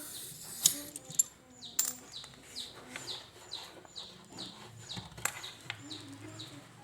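A bird calling in a quick, regular series of short falling chirps, with a few sharp clicks scattered among them.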